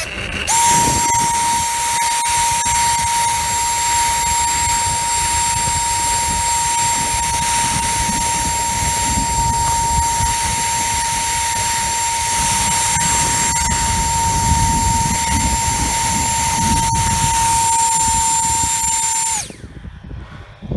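Electric ducted fan of a small RC model plane running at steady throttle: a constant high whine over rushing air. About a second before the end the whine sags slightly and cuts off suddenly.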